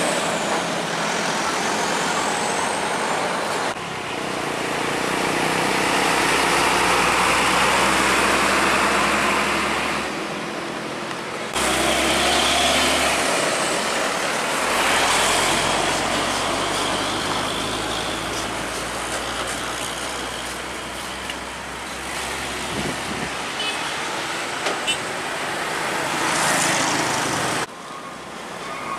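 Heavy diesel trucks driving past close by on a highway: engine drone with tyre and road noise. The sound changes suddenly several times as separate passes are cut together.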